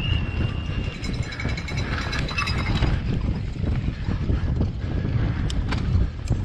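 Point-of-view audio from a mountain bike descending a dirt downhill track: steady heavy wind rumble on the helmet-mounted microphone over tyres on loose dirt, with the bike rattling and a few sharp clicks near the end.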